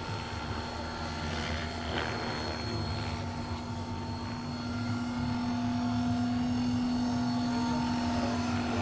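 Large-scale RC model CH-113 Labrador tandem-rotor helicopter in flight: steady rotor and drive whine over a low rotor rumble, growing a little louder from about five seconds in.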